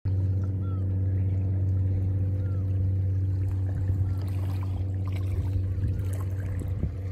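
Steady low drone of a fishing boat's engine running out on the water, with water washing on the shore rocks. Four faint short bird calls come about two seconds apart.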